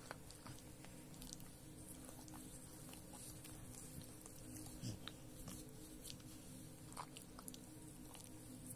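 Dog licking and nibbling at its paw: faint, irregular wet licking and chewing clicks.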